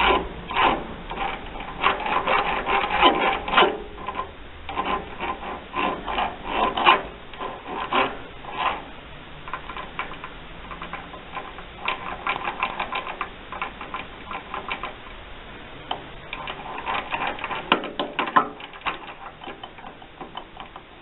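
Change gears of a Harbor Freight 9x20 lathe, the plastic gear and the idler intermediate gear cluster, clattering in irregular bursts of rapid clicks as a hand presses on the gears, with quieter stretches between. The owner suspects there could be too much loose play in the cluster.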